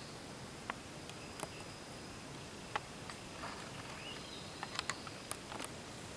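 Quiet woodland ambience: a steady high-pitched insect drone with scattered sharp ticks, and a short rising bird chirp about four seconds in.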